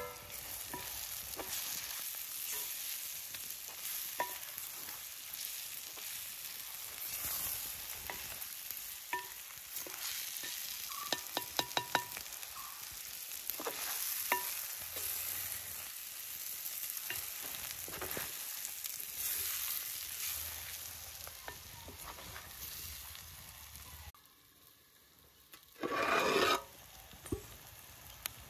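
Prawns frying in masala in a pan, sizzling steadily while a spatula stirs, scraping and clinking against the pan, with a quick run of clinks about halfway through. Near the end the sizzle drops away for a moment, then a short loud burst of noise.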